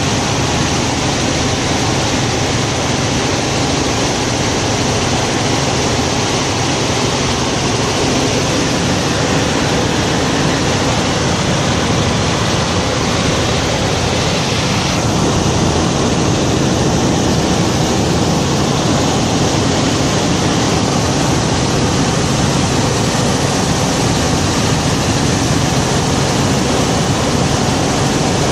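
Helicopter in flight: a steady drone of engine and rotor under loud rushing-air noise, with no change in pace.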